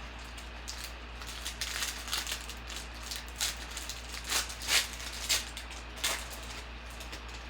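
Crinkling and tearing of a foil trading-card pack wrapper as it is opened, with the cards handled and slid out: a run of irregular crackles, loudest a little under five seconds in.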